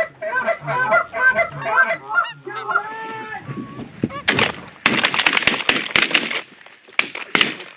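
Canada geese honking in quick repeated calls, then one drawn-out call, followed about four seconds in by a volley of shotgun fire from several guns, shots overlapping closely, with a few more single shots near the end.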